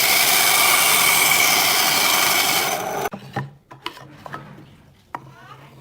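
An electric woodworking power tool runs loud and steady against wood, with a high whine over the noise, then stops abruptly about three seconds in. A few sharp wooden knocks and clatters follow.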